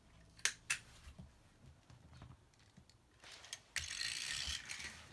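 Plastic toys being handled: two sharp clacks about half a second in, a few faint knocks, then about a second and a half of loud rustling, scraping noise past the middle.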